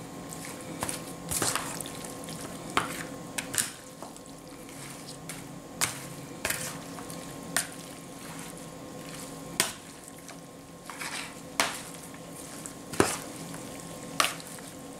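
A metal spoon stirring and tossing chopped fish and herbs in a plastic basin, with a dozen or so irregular sharp clicks and knocks of the spoon against the bowl. A steady low hum runs underneath.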